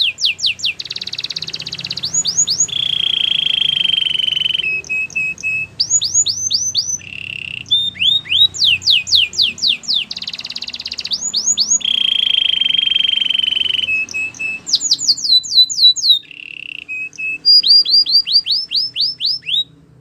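Canary singing: runs of quick whistled notes that sweep in pitch alternate with fast, even rolls held on one pitch, the phrases repeating over and over. The song stops just before the end.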